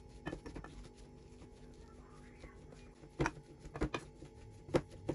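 Wooden potato masher pounding boiled potatoes in a metal bowl: several irregular soft thuds and knocks, a few near the start and louder ones in the second half.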